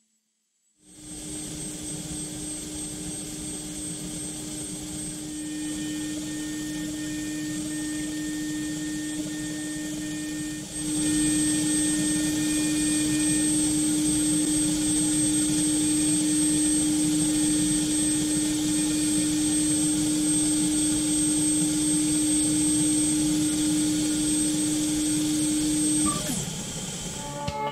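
Five-axis CNC milling machine cutting a pattern into a metal sphere under coolant spray: a steady spindle tone over a broad hiss. It starts after a moment of silence, grows louder about ten seconds in, and cuts off shortly before the end.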